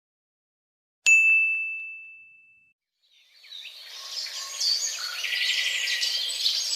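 A single bright bell ding about a second in, its one clear tone ringing away over a second or so. Then birds chirping fade in and keep on.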